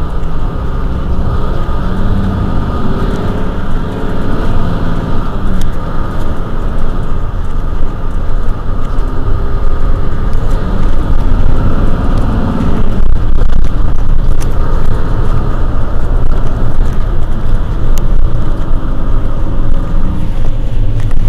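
Mercedes-Benz Citaro C2 city bus's OM936 six-cylinder diesel idling at a standstill, heard from just behind the bus. It grows a little louder in the second half.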